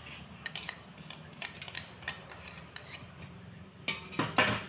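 A spoon tapping and scraping a small bowl to knock grated palm sugar into a steel pot, a run of light clicks. About four seconds in comes a louder scrape as the spoon drags across a metal tray.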